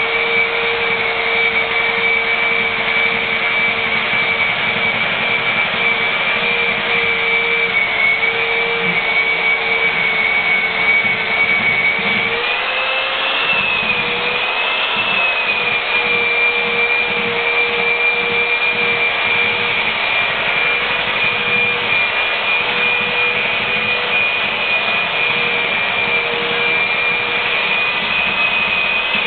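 Parkside electric belt sander running and sanding the end-grain face of a log slice, with a steady motor whine. The whine rises and wavers briefly about halfway through, then settles back.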